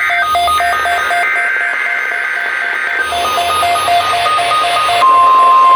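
NOAA Weather Radio Required Weekly Test alert: rapid electronic alert beeps, about four or five a second, over the buzzing data burst of the SAME header. About five seconds in, the steady 1050 Hz weather-radio warning alarm tone starts and is the loudest sound.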